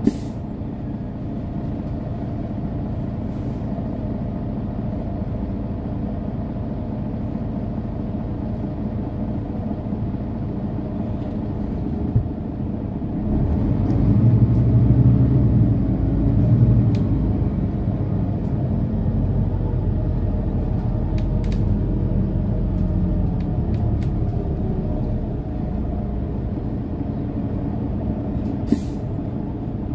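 Interior of a Mercedes-Benz O530 Citaro Facelift city bus on the move: diesel engine and drivetrain running steadily, swelling louder for a few seconds about halfway through. A few short sharp clicks sound near the start, about twelve seconds in and near the end.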